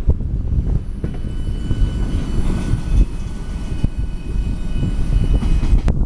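Freight train's covered hopper cars rolling past below: a steady low rumble of wheels on rail, with a few scattered clicks and a faint thin high whine over it.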